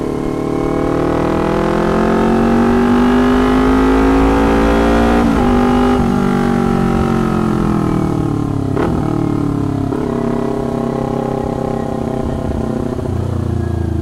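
Kawasaki Ninja 250's parallel-twin engine running through a very noisy aftermarket tin-can exhaust while riding. Revs climb for about five seconds until a gear change breaks them. They then fall away as the bike slows, with two more short breaks, and settle at lower revs near the end.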